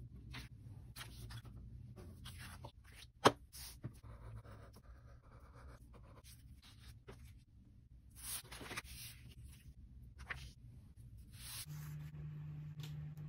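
Paper sheets being handled and slid over a tabletop, with a pencil scratching on paper: a string of short rustles, and a sharp click about three seconds in. A low steady hum comes in near the end.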